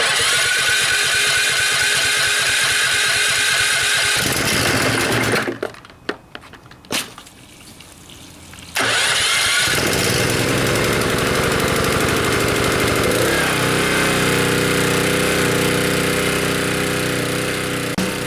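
Subaru EA190V single-cylinder pressure washer engine being cranked by its electric starter, firing briefly about four seconds in and stopping, then cranked again about nine seconds in, catching and running steadily on its freshly cleaned carburetor.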